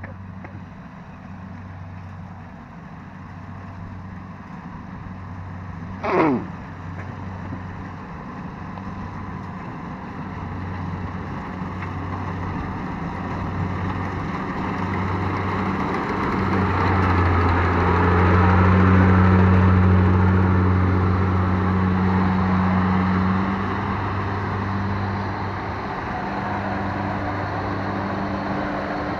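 Rice combine harvester's engine running steadily as it cuts rice and closes in. It grows louder to a peak about two-thirds of the way through, then eases slightly. One brief sound falling in pitch about six seconds in.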